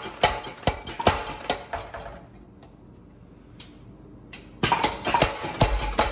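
Power hammer striking a red-hot steel bar, a steady run of blows about two and a half a second. The blows stop for about two seconds while a hand-held top tool is set on the bar, then start again faster, about five a second, a little over four seconds in.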